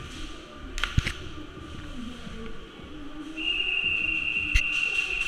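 A sharp snap about a second in, then a long, steady, high-pitched whistle-like tone starting about three and a half seconds in and holding, with another snap near the end.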